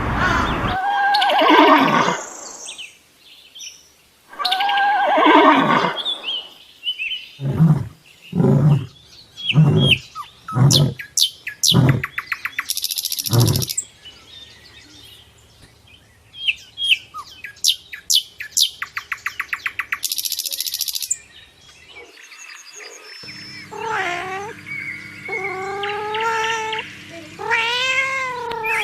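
A run of different animal calls one after another, bird calls among them. The calls include long pitched cries, a series of short loud calls, a fast chattering trill, and repeated rising-and-falling calls near the end.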